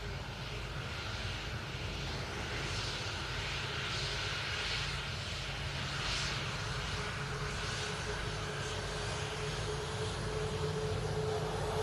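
Boeing E-6B Mercury's four CFM56 turbofan engines running at low power as the jet taxis, a steady rumble and hiss with a whine. The sound grows gradually louder, and the whine becomes stronger near the end.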